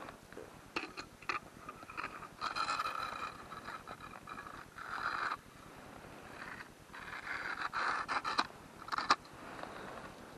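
Scattered scraping and rustling from hands working a fishing line at an ice hole, with several sharp clicks in between.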